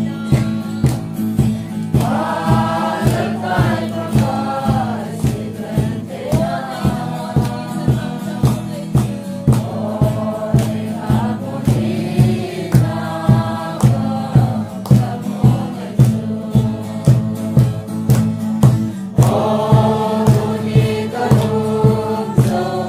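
Group of men and women singing a hymn-like song together in phrases, over a steady beat on a hand-played barrel drum.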